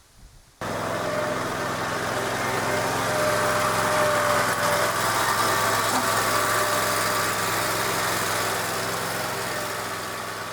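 Zero-turn riding mower's engine running steadily, cutting in abruptly about half a second in.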